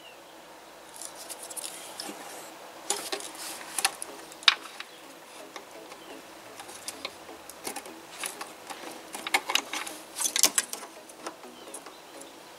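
Scattered small plastic clicks and rustles as wiring-harness connectors are squeezed and pulled off and the wires are handled, with a quicker cluster of clicks near the end.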